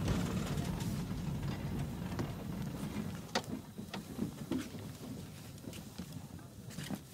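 Tram interior: a low running rumble that fades steadily as the tram slows, with a few sharp clicks and knocks in the second half.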